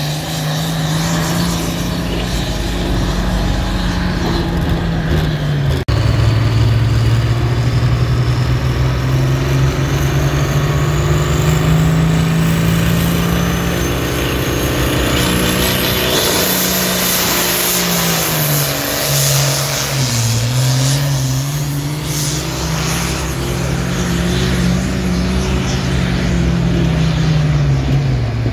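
Diesel pulling tractors and trucks dragging a weight-transfer sled, their engines running hard under full load with the pitch rising and falling. A thin high whistle climbs slowly in pitch over the first half.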